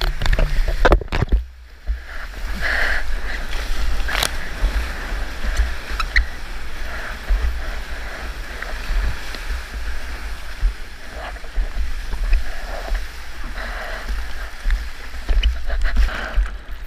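Seawater rushing and splashing around a surfboard riding through broken whitewater, over a constant low rumble of water and wind buffeting an action camera's microphone. It ends in a burst of splashing as the rider falls off the board.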